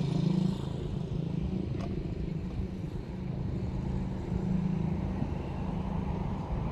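An engine running nearby with a steady low hum that swells at the start and again midway.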